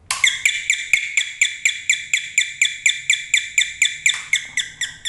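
Electronic mains doorbell sounding through its small loudspeaker the moment power is switched on: a rapid string of short, high, slightly falling tones, about six a second, a little weaker after about four seconds. The bell is working again now that its faulty 220 µF capacitor has been replaced and a broken solder joint remade.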